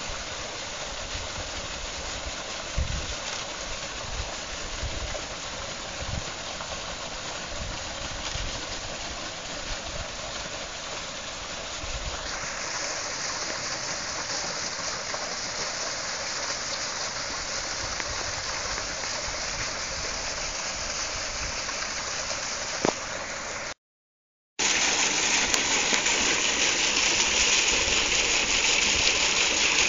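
Water pouring from a pipe onto the paddles of a small homemade water wheel, splashing and rushing steadily as the wheel spins. The sound cuts out briefly about three-quarters of the way through and comes back louder and hissier, close to the falling water. There are a few low thuds in the first half.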